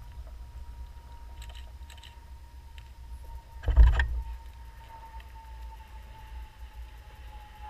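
The twin Ford 351 V8 engines of a 1977 Safari 28 flybridge boat running at low speed as it motors out of its slip: a steady low rumble with a faint whine that sinks slightly in pitch. A brief loud thump comes about four seconds in.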